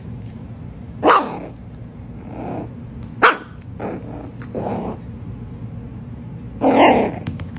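A young puppy barking about six times: two sharp high yips with softer barks between them, and a longer, loud bark near the end.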